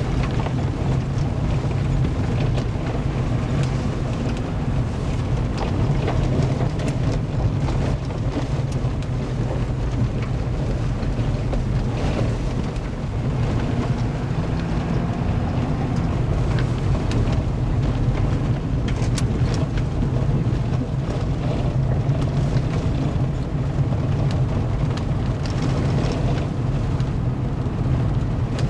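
Steady road noise heard inside a vehicle's cabin while driving on a gravel road: a low engine and drivetrain drone with tyres rumbling on gravel, and a few faint ticks.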